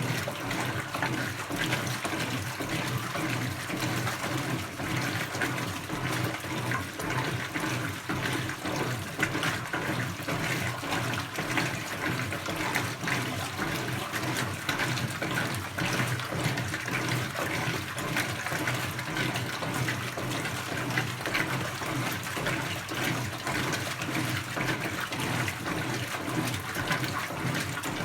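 Brastemp BWK17 17 kg washing machine running its quick cycle: a steady rush and splash of water in the drum with a low motor hum underneath.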